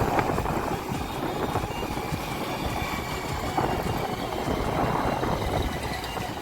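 Steady road noise of a vehicle travelling along a highway: engine and road noise running evenly throughout.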